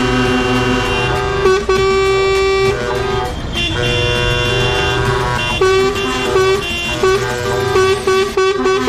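Vehicle horns, likely truck air horns, sounding several at once in long held blasts and then shorter repeated toots, over idling engines.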